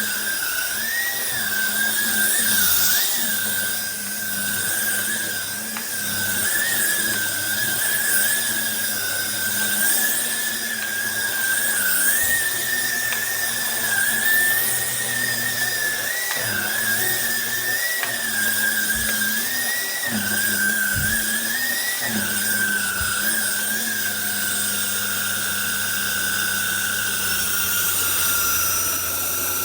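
Cordless stick vacuum cleaner running, its motor giving a steady high whine that wavers up and down in pitch. Near the end the whine settles and a higher tone rises.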